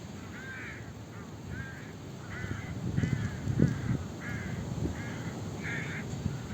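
A bird calling over and over, a short arched note a little more than once a second, with low rumbling noise underneath.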